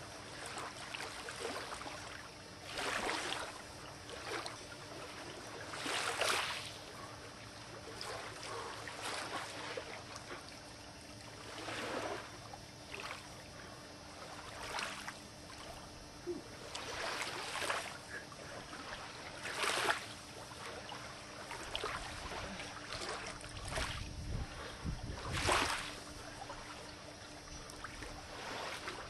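Small lake waves lapping on the shore, a soft wash rising and falling every two to three seconds, with a low rumble of wind on the microphone about three-quarters of the way through.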